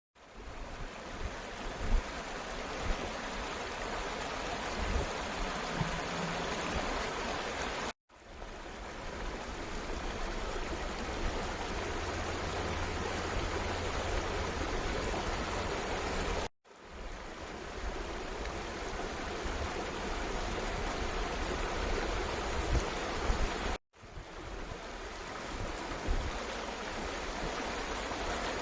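Steady rushing of a flowing stream, with a few faint low knocks. It drops out abruptly three times and fades back in each time.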